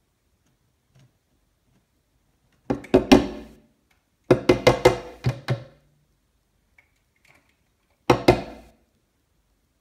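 Hooded crow pecking its beak against window glass at its own reflection: three bouts of sharp knocks, the longest run in the middle.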